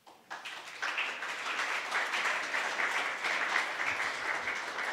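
Audience applauding, starting a moment in.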